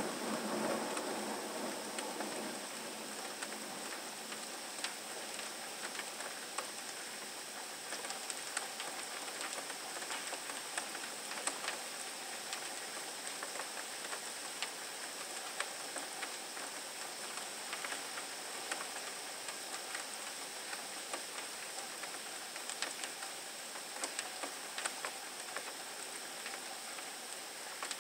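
Steady rain falling, with scattered sharp ticks of drops hitting nearby surfaces. A thunder rumble dies away over the first couple of seconds.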